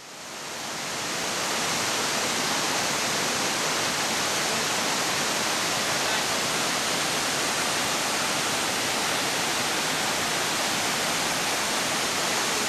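Virginia Hawkins Falls, a waterfall cascading over rock ledges into a rocky stream: a steady rush of falling water that fades in over the first second or two.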